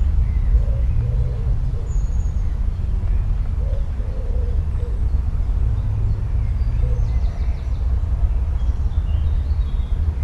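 Rural outdoor ambience dominated by a steady low rumble. Faint, low hooting bird calls repeat every second or two, and a few faint high chirps and trills come from small birds.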